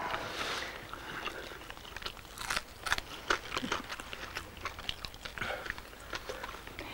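A man biting and chewing roast chicken, with irregular short mouth clicks and crunches.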